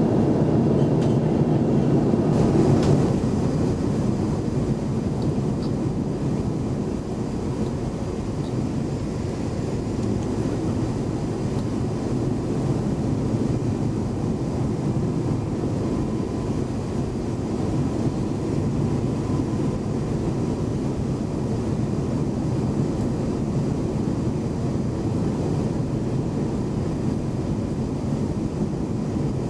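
Steady roar of airflow and engines heard inside the cabin of an Airbus A350-900 during descent and final approach. The sound shifts slightly quieter about three seconds in.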